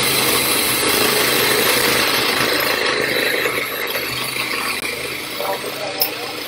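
Hand-sized electric mini food chopper running, really loud, its blades chopping frozen banana chunks as hard as ice cubes while the mixture turns mushy at the bottom. The motor stops right at the end.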